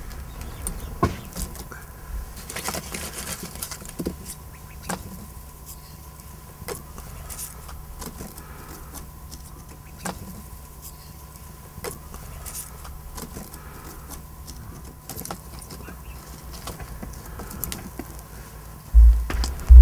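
Small fire of dry twigs and roots crackling, with scattered sharp pops and ticks over a low steady hum. A loud low rumble comes in about a second before the end.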